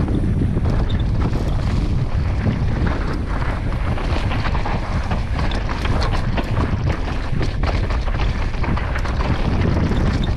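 Wind buffeting the camera microphone during a fast mountain-bike descent, over the knobby tyres rolling on a dirt trail and the bike rattling over bumps in frequent sharp ticks.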